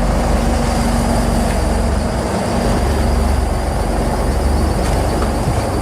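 Boat motor running steadily under way, a loud low rumble with a faint steady hum over it.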